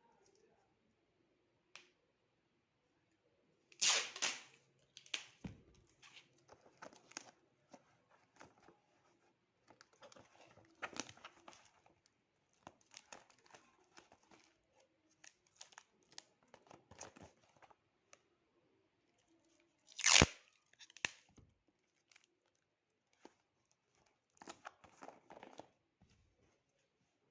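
Packaging being torn open by hand and handled: two loud rips, one about four seconds in and another about twenty seconds in, with crinkling and rustling between them.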